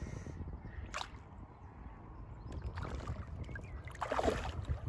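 A hooked trout splashing at the surface, with a smaller splash about three seconds in and the loudest near the end, over a low rumble of wind on a phone's microphone.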